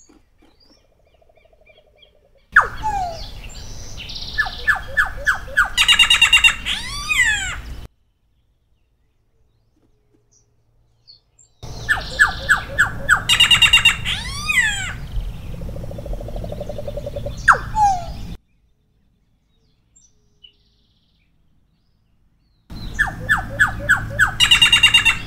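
Solitary black cacique (Cacicus solitarius) singing in three bouts of several seconds each, separated by pauses. Each bout mixes runs of quick repeated notes with high slurred notes that fall steeply in pitch.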